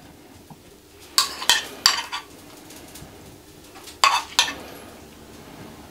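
Metal spoon clinking and scraping against a ceramic bowl while chopped tomato and onion salad is scooped out: a quick run of clinks about a second in, and two or three more near four seconds.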